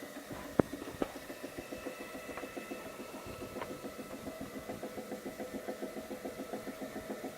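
Furukawa FVS-3 vacuum packaging machine running: a steady machine hum with a rapid, even pulsing. Two sharp clicks come about half a second and a second in.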